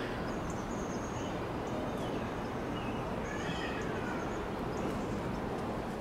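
Outdoor ambience: a steady background hiss with a few faint bird chirps over it.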